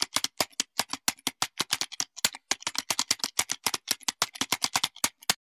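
Typing sound effect: a fast, irregular run of keystroke clicks, about seven or eight a second, that stops abruptly near the end.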